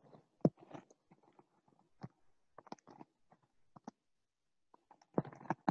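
Light knocks, clicks and brief rustles of things being handled on a wooden altar table: a cloth-covered square set over a chalice and the altar book on its stand being touched. The clearest knock comes about half a second in, and a small cluster comes near the end.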